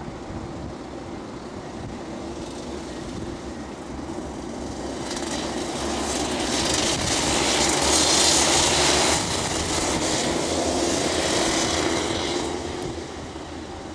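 A pack of 125cc two-stroke Rotax kart engines running at race speed as the karts pass close by. The sound builds to its loudest about 8 seconds in, drops a little a second later, and fades away near the end.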